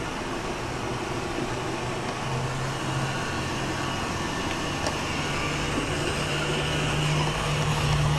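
Roomba robot vacuum running: a steady whir of its motor and brushes with a low hum that sets in about two seconds in, growing gradually louder.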